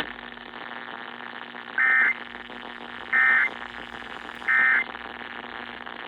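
Emergency Alert System end-of-message signal: three short, shrill digital data bursts about a second and a half apart over steady radio hiss, marking the end of the broadcast warning.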